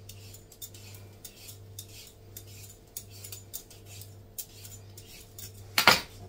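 Kitchen knife cutting a cucumber on a wooden chopping board: a string of light, irregular taps and clicks, then one louder knock near the end. A steady low hum runs underneath.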